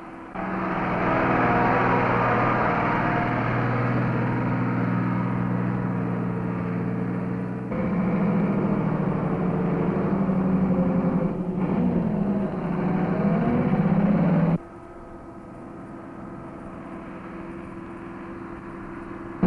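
Bedford truck engine pulling hard up a steep, winding hill road. The engine note rises and falls with gear changes about two-thirds of the way through. The sound jumps abruptly in level and tone a few times where the film is cut.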